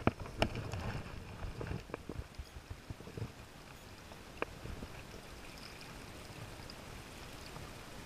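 River water flowing, a faint steady rush, with a few sharp clicks and knocks in the first few seconds and one more midway.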